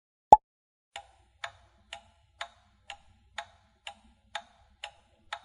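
Quiz countdown timer sound effect: a clock ticking evenly about twice a second, opened by a single sharp pop just after the start.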